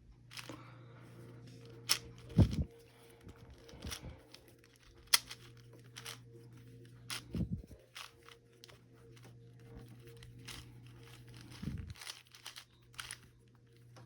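Plastic Rubik's cube being turned by hand: irregular clicks and clacks of the layers, with a few duller knocks from handling, over a steady low hum.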